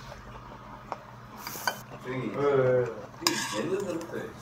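Metal chopsticks and a metal spoon clinking and scraping against a stainless-steel bowl of seafood ramen as the noodles are stirred, with a sharp click about three seconds in. A short hummed voice sound near the middle is the loudest part.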